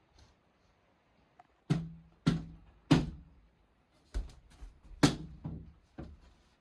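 A series of about eight sharp knocks, three about half a second apart, a pause, then five more, each with a short ringing tail that dies away.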